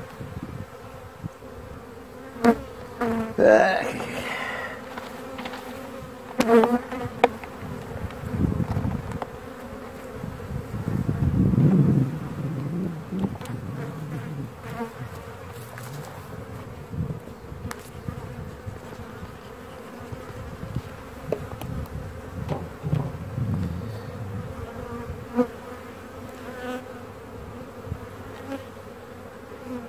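Honeybees buzzing steadily over an open beehive, with several sharp knocks and clicks of wooden hive frames and a hive tool being handled, the loudest in the first eight seconds. A few low rumbles swell up in the middle.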